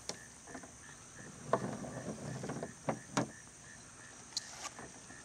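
Crickets chirping steadily, about three chirps a second, under a few sharp clicks and short rustles from string being handled against a car's trunk lid.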